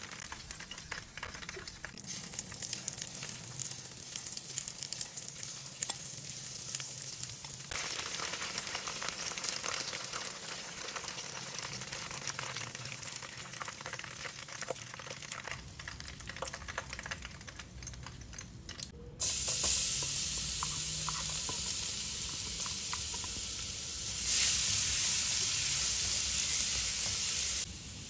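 Battered chicken pieces frying in hot oil, a crackling sizzle with metal tongs clicking as the pieces are turned and lifted out. About two-thirds through it switches abruptly to a louder, smoother sizzle of minced garlic frying in oil, which grows louder again for the last few seconds.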